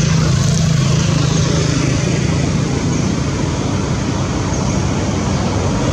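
A steady low motor hum over continuous background noise, with no breaks.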